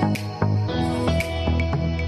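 Background music: plucked guitar notes over a steady low bass.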